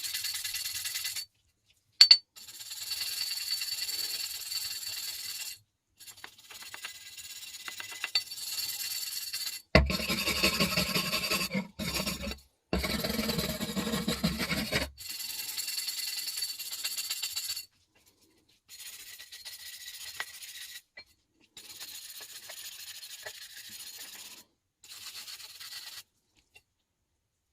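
Wire brush scrubbing dirt and rust off an old iron spoon: harsh scraping in a series of stretches that start and stop abruptly, with a heavier, fuller stretch about a third of the way in.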